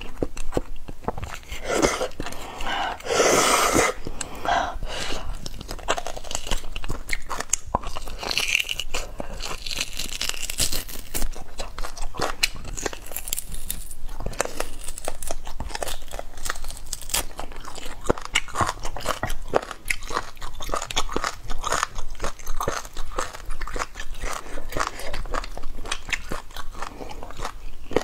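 Close-miked eating of spicy braised beef bone marrow: the marrow is sucked out of the cut bones and chewed, with many small wet mouth clicks and a few longer sucking noises, around three seconds in and again around eight to ten seconds in.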